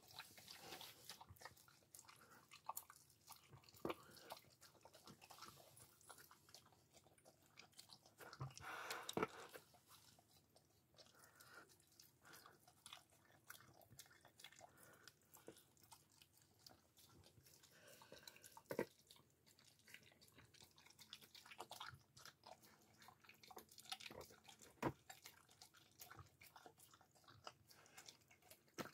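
A husky eating wet food from a plastic slow-feeder bowl: faint, irregular chewing and biting clicks, with a louder run of them about nine seconds in.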